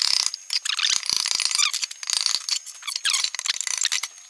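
A quick, irregular run of metallic taps and clinks as a stainless steel end cap is tapped into an exhaust silencer casing with hammers.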